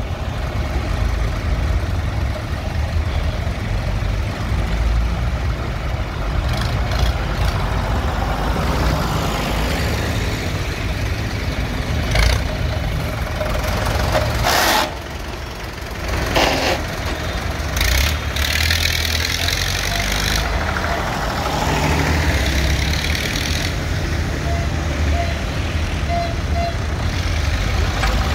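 Vintage farm tractors, among them a John Deere, a Fordson and Massey Fergusons, driving slowly past one after another with their engines running. A few short loud bursts of noise come near the middle.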